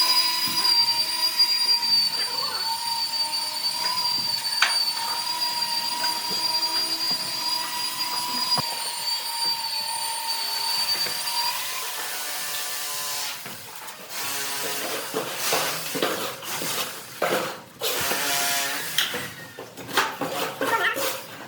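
A small electric motor, such as a power tool's, runs with a steady high whine for about twelve seconds and then winds down. Uneven clattering and working noise follow.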